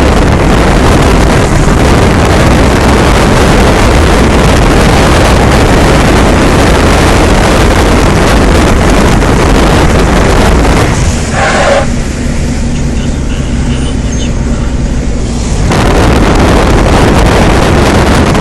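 Gale-force wind buffeting a phone's microphone: loud, continuous rumbling wind noise. A little past the middle it turns duller and slightly quieter for about four seconds, then comes back at full strength.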